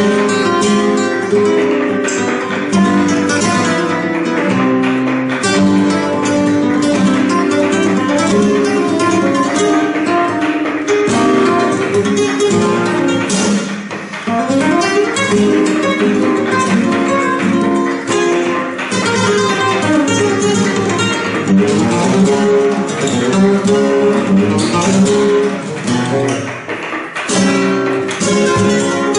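Flamenco guitar playing continuously, with quick runs of plucked notes and sharp strummed attacks. It dips briefly in loudness about halfway through.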